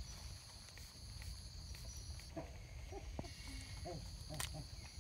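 Baby macaque giving about four short squeaky calls in the second half while being handled, over a steady high buzz of insects.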